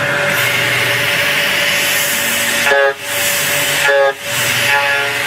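Machinery running loudly: a steady hiss with a steady whine on top, dropping out briefly twice, about three and four seconds in.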